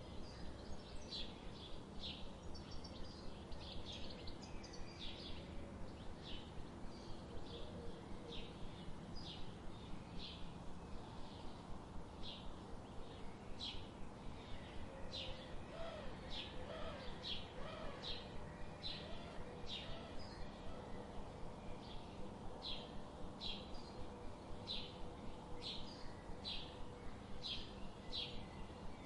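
Small birds chirping: short, sharp, high chirps repeated steadily, about two a second, with a few faint low warbling notes about halfway through.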